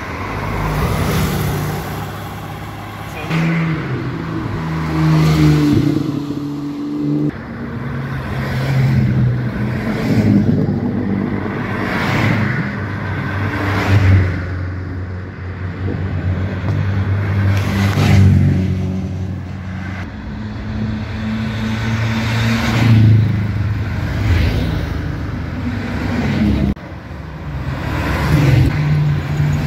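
A string of classic sports and racing cars driving past one after another, each engine note rising as the car accelerates by and then fading, with a pass-by whoosh every few seconds.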